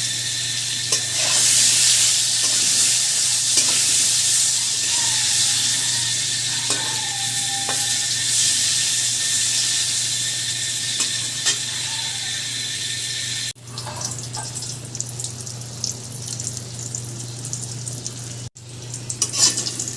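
Eggplant (brinjal) slices frying in hot oil in a kadai, a steady loud sizzle over a faint low hum, with a few light clicks. The sizzle cuts out abruptly twice near the end.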